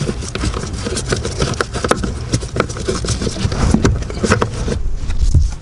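Irregular clicks, taps and scrapes of a Phillips screwdriver working against the hard plastic housing of a blend door actuator as it is screwed into place.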